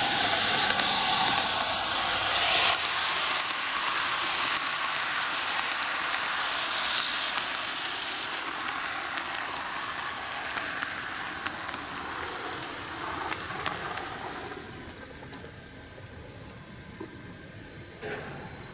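N gauge model trains running on track: a steady high-pitched rushing of wheels and motors with many small clicks at the rail joints. The sound fades down about three-quarters of the way through as the running train moves off and comes to rest.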